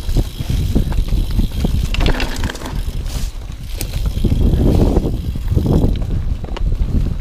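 YT Capra full-suspension mountain bike riding fast down a dirt singletrack: a constant low rumble from the tyres and wind, broken by frequent short clicks and rattles from the bike, with a few swells of rushing noise.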